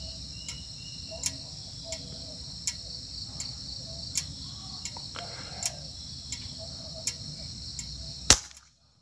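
Insects buzzing steadily in a high band, with a faint tick repeating about every 0.7 s. About 8.3 seconds in, a single sharp shot from a suppressed multi-pump air rifle (Sharp Tiger-based build) fired at perched spotted doves, after which the sound cuts out abruptly.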